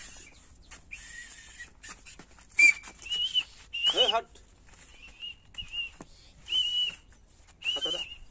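A whistle blown in a series of short blasts, about six, each held at one high pitch. There is a sharp click about two and a half seconds in.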